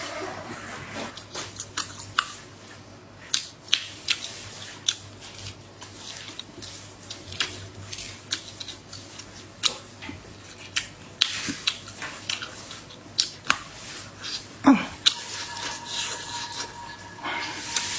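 Close-miked eating of hand-torn duck neck: irregular sharp cracks and snaps of meat and bone being torn and bitten, with chewing in between. A faint steady tone comes in about fifteen seconds in.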